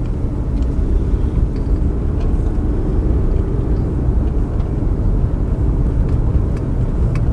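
Steady low road and engine rumble of a car heard from inside the cabin while driving, with a few faint light clicks.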